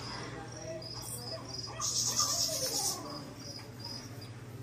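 Faint, short, high-pitched chirps repeating about three times a second over a steady low hum, with a soft hiss rising for about a second two seconds in.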